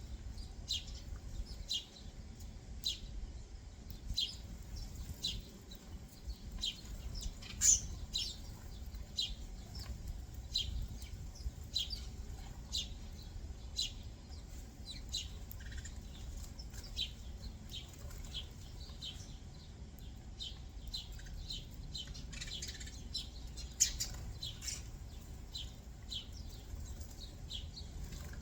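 Small backyard songbirds chirping: a steady run of short, high chirps, one to three a second, with one louder chirp about eight seconds in and another near twenty-four seconds, over a steady low rumble.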